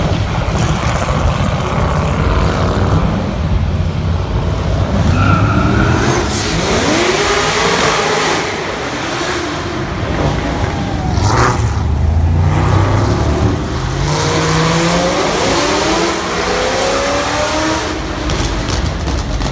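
Loud car engines revving and accelerating hard, their pitch sweeping up and falling back several times over steady road noise.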